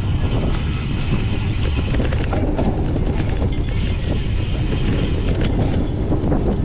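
Wind rushing over the microphone while a cyclocross bike rattles and knocks over rough ground, with many small clicks throughout.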